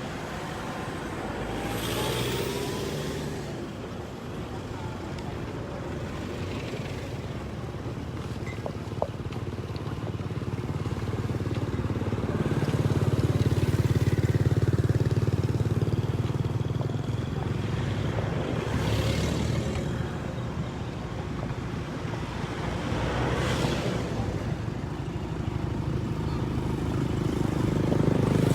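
Motor vehicles passing on a road, several going by one after another over a steady low rumble.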